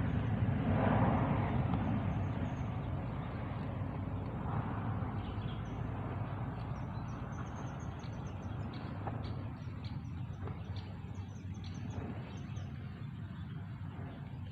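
A low motor rumble that fades slowly away, with small birds chirping repeatedly over it from about a third of the way in.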